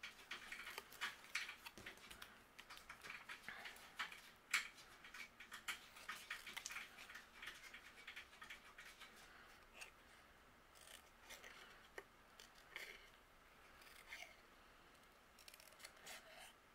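Small scissors fussy cutting a stamped paper image: many short, faint snips at an irregular pace, closer together in the first half and sparser later.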